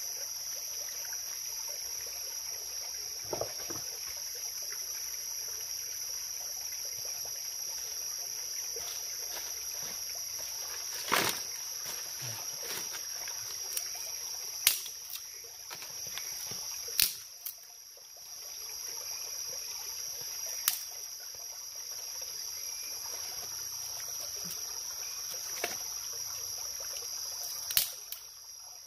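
A steady, high-pitched drone of insects over a trickling stream. A few sharp cracks and snaps cut through it, from thin sticks being worked by hand.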